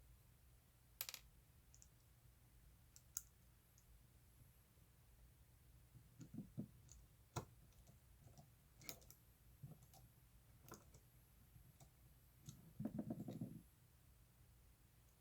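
Faint, scattered small clicks and taps of a folding knife's metal parts and small tools being handled during reassembly, with a brief rattling scrape near the end.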